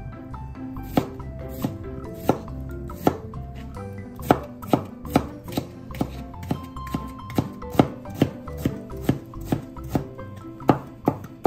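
Chef's knife slicing a cucumber on a plastic cutting board: a steady run of sharp knife taps on the board, about two to three a second, coming faster after about four seconds.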